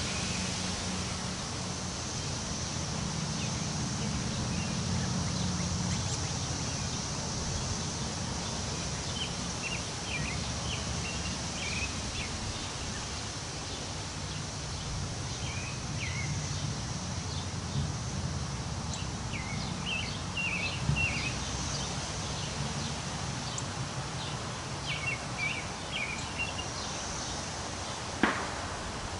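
Wind blowing through trees, a steady rush with a low rumble, while small birds give short chirps now and then. A single sharp click comes near the end.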